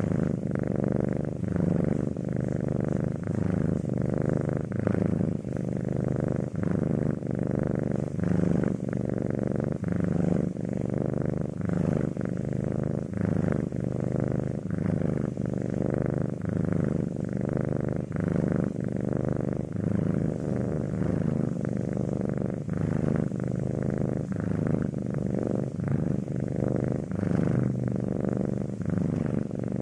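A British Shorthair cat purring steadily while resting, the low rumble swelling and easing in an even rhythm with each breath.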